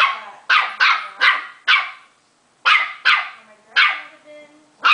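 A small puppy yapping at a TV remote: about eight short, high-pitched barks in two quick runs, with a brief pause a little after two seconds in.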